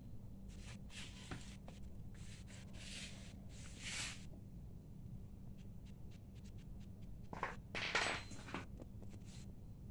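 Short bursts of scraping or rubbing with a few light clicks, twice in clusters, over a steady low hum.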